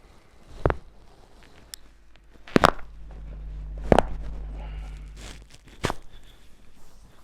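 Sharp cracks and pops during a chiropractic back adjustment: four separate ones, the second a quick double crack. A low hum runs under the middle stretch.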